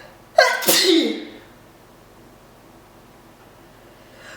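A woman's loud sneeze about half a second in: a sudden burst that trails off over about a second in a falling, voiced 'choo'. Near the end comes a faint breath in.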